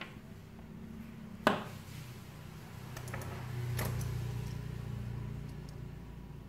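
Oscilloscope probe accessories handled on a wooden bench: a sharp click as a connector is set down about one and a half seconds in, light ticks, and a second click a little over two seconds later. A low rumble rises and fades through the middle.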